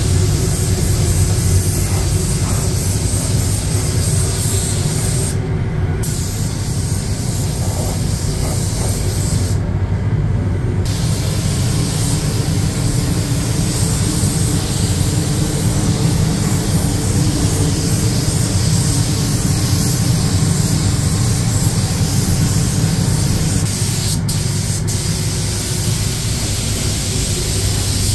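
Gravity-feed spray gun hissing as it sprays paint onto a car body, over a steady low hum; the spray cuts out briefly twice, about five and ten seconds in.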